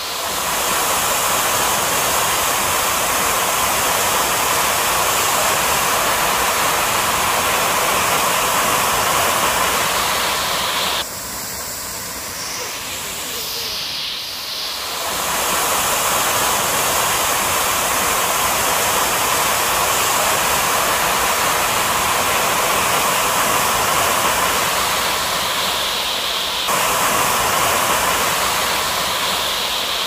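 Rushing water of a rocky river's rapids and falls, a loud steady rush with no pitch to it. It drops and changes character abruptly about 11 seconds in, and again near 15 and 27 seconds.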